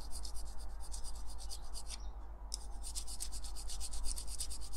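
Metal hand file rasping in rapid short strokes, several a second, across a rivet end on a die-cast toy car's metal baseplate, with a short break about halfway. The rivet end is being flattened so a punch can be set on it.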